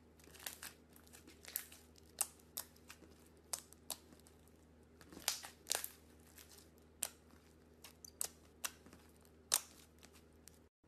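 Thick purple slime with small beads mixed in, pressed and squished by hand, giving irregular sharp crackles and pops, a few of them louder, over a faint low hum; the sound cuts off just before the end.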